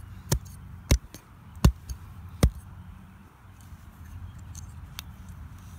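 Hunting knife stabbed through a plush stuffed rabbit into a burnt tree stump: four sharp thuds in the first two and a half seconds, then a fainter one about five seconds in.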